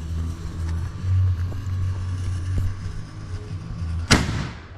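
Deep bass notes from music pulse underneath, then one sharp, loud firework bang about four seconds in, fading out quickly.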